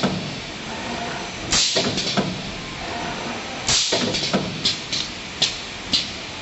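Automatic wire-forming machine making spider-strainer star frames, running with a steady mechanical hum. It gives hissing, clacking strokes as it indexes and places the wires: two longer ones about two seconds apart, then quicker, sharper clacks near the end.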